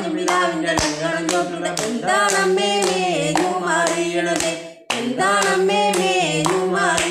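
A woman singing a Malayalam chavittukali folk song, with steady hand claps keeping time. The singing and clapping break off for a moment just before the fifth second, then start again.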